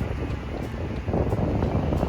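Mini excavator running steadily under work, a low rumble with a gritty, scraping texture, as it spreads crushed stone.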